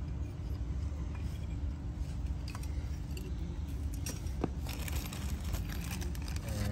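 Light clicks and knocks of metal parts being handled, then a small plastic hardware bag crinkling from about five seconds in, over a steady low rumble.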